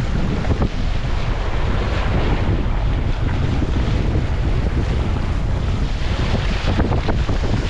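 Strong wind buffeting the microphone over the rush and splash of water along the hull of a Hobie Tandem Island sailing trimaran driven hard through choppy waves at about 9 mph.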